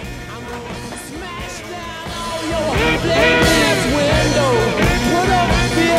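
Rock song with singing over a band, swelling louder about two and a half seconds in.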